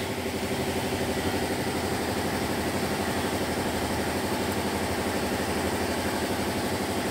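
Truck engine idling steadily with an even, rapid pulse.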